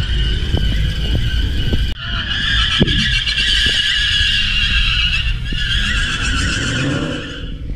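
Car tires squealing under wheelspin, with a low engine rumble beneath. The squeal grows louder about two seconds in and fades near the end.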